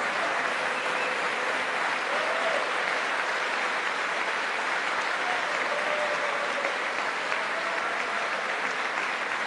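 Large crowd applauding steadily in a standing ovation.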